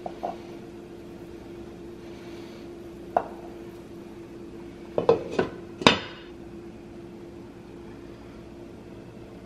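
Eggs knocking against a metal pan as they are set into simmering water, then a glass pot lid clattering onto the pan in four quick knocks about five seconds in, the last the loudest. Faint hiss and a steady low hum run underneath; the lid closes the pan for a steam boil of the eggs.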